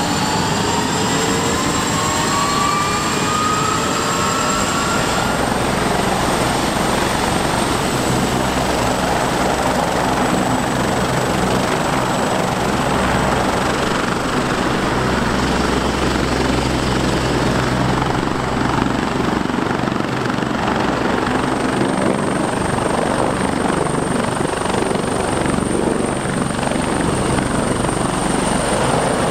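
Airbus H175 twin-turbine helicopter running up: a turbine whine rises in pitch over the first few seconds, then gives way to steady turbine and main-rotor noise with a low beat as it lifts off the ground near the end.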